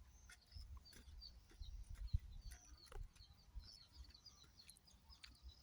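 Faint, scattered high chirps of small birds over a low rumble and occasional light clicks.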